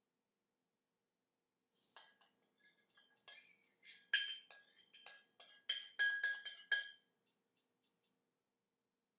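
A spoon clinking against a bowl in a quick, irregular run of strokes, as in stirring or beating, each clink ringing briefly. The clinking starts about two seconds in and stops about seven seconds in.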